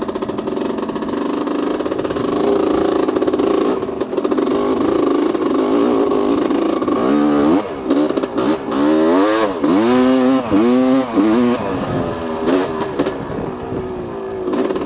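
1985 Honda CR250R's single-cylinder two-stroke engine running on the trail, holding fairly steady at first, then revved up and down several times in quick succession about halfway through as the throttle is worked, with choppier throttle toward the end.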